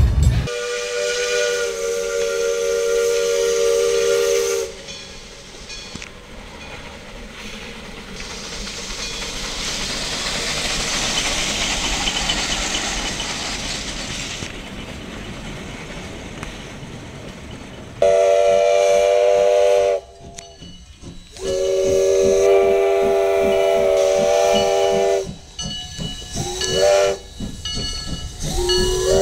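Steam locomotive whistles and steam. It opens with a multi-note chord whistle held for about four seconds. Then comes a long stretch of steam hissing from a Shay geared locomotive, swelling and fading. Near the end a steam whistle gives several more chord blasts: two long ones, then shorter toots.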